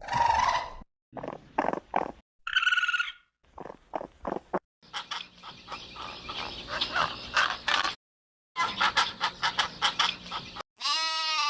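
A quick run of short, different animal calls spliced together with abrupt silent gaps between them: clicking and croaking calls, a dense pulsing chorus, and near the end a wavering, bleat-like cry.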